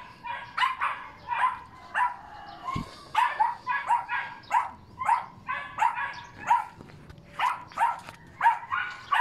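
A dog barking over and over, short high-pitched barks coming in quick runs with brief pauses between.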